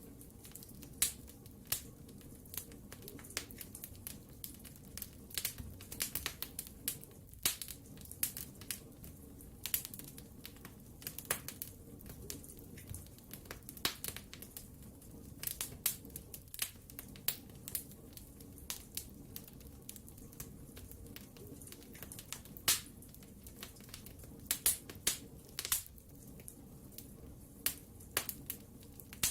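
Wood fire burning in a fireplace: irregular sharp crackles and pops over a low, steady rumble of flames.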